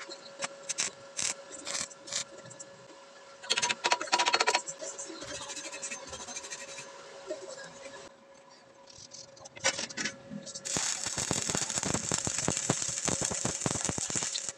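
Electric arc welding on steel plate: for the last few seconds the arc gives a dense, even crackle that cuts off abruptly. Before it come scattered metallic clicks and knocks, with a faint steady tone throughout.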